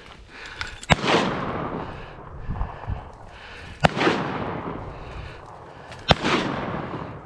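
Three shotgun shots at ducks, about three seconds apart, each a sharp blast followed by a rolling echo that fades over about a second.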